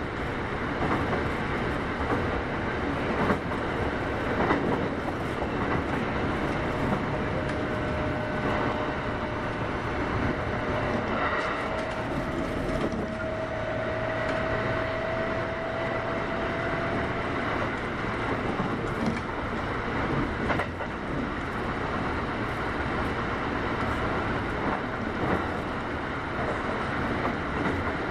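Kintetsu 8810-series electric train running at speed: a steady rumble of wheels on rail with a few scattered clicks, and a faint steady whine for about ten seconds in the middle.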